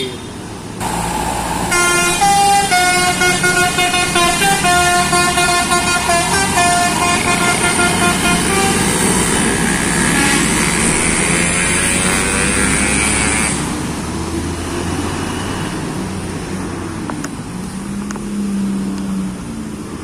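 Basuri multi-tone 'telolet' horn on a Mercedes-Benz tour bus playing a tune of quickly stepping notes for about seven seconds, then the bus's engine and passing traffic.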